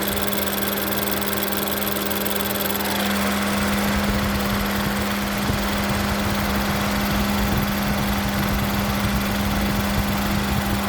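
Ford Escape 1.6 EcoBoost turbocharged four-cylinder running with a steady hum, turning rougher and noisier about three seconds in, while the turbo's wastegate is forced by hand. The owner blames a sticking wastegate, which makes the engine start and then die.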